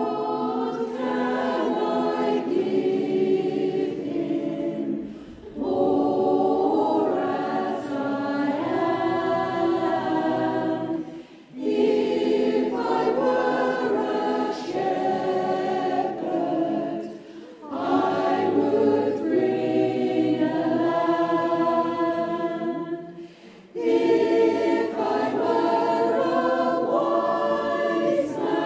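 Mixed choir of men's and women's voices singing unaccompanied, in phrases of about six seconds with short breaks for breath between them.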